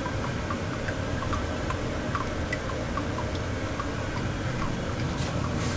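Water dripping into a sump pit, small drips a few times a second over a steady low rumble. It stops abruptly at the end.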